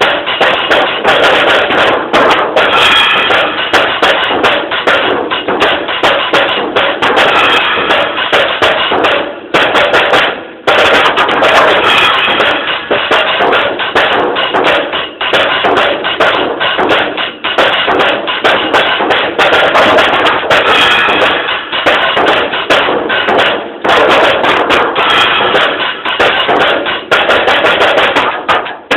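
Drum kit played in a fast, busy solo of dense strokes with cymbals, recorded loud and thin through a mobile phone's microphone. The playing breaks off briefly about ten seconds in.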